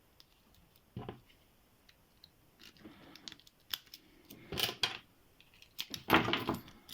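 A lock pick being rocked in a Qualtec padlock's keyway with a tension wrench in: scattered small metallic clicks and rattles, with louder clusters about a second in, around four and a half seconds and again around six seconds.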